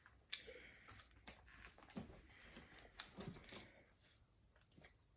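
Faint wet mouth sounds of children licking and sucking sticky caramel apple lollipops: scattered irregular clicks and smacks.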